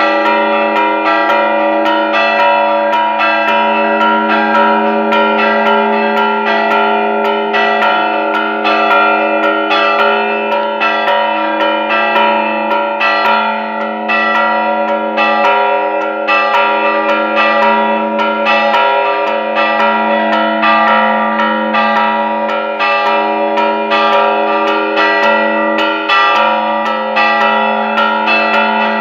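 Church bells pealing in a festive repique, several bells struck by hand in rapid, unbroken succession so that their tones ring over one another.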